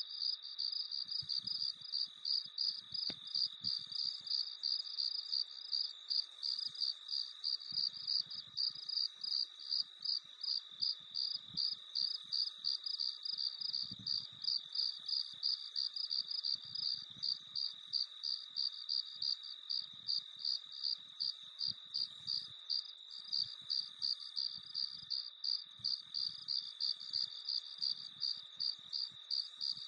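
Crickets chirping in an even, unbroken rhythm of about two to three chirps a second, with a fainter steady insect hum beneath.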